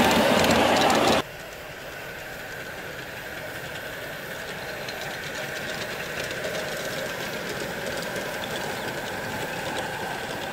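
5-inch gauge live-steam model locomotive running past on its track, loud and clattering close by for about the first second, then dropping suddenly to a quieter, steady running sound with faint regular clicks.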